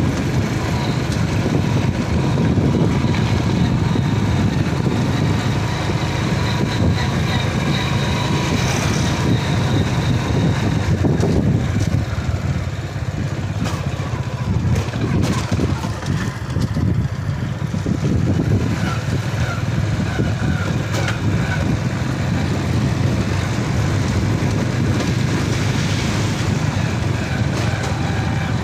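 Motorcycle engine running under way, with road and wind noise on the microphone; the sound dips a little around the middle of the ride.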